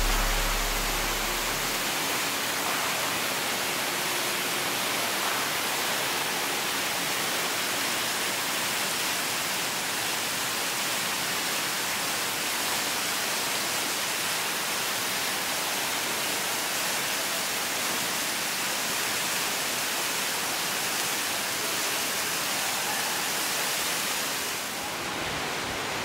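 Waterfall rushing: water falling from height and splashing onto rocks, a steady, even hiss.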